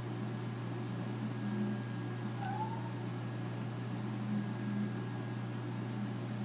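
American Curl cat meowing a few times out of boredom, demanding attention and play, with one short rising call about two and a half seconds in. A steady low hum runs underneath.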